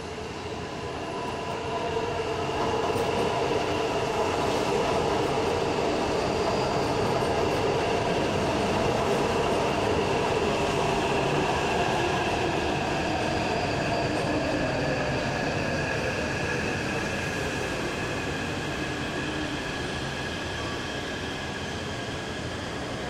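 Taipei MRT C381 electric train pulling into an elevated station and slowing to a stop. Its running noise swells as it comes alongside, and its motor whine slides down in pitch from about halfway as it brakes, with a thin steady high tone over it.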